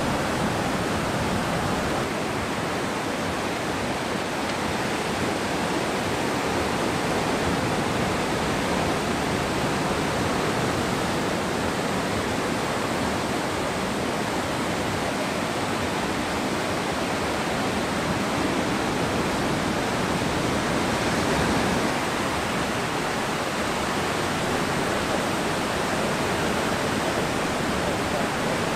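Ocean surf breaking and washing in: a steady, even rush of noise that swells slightly about twenty-one seconds in.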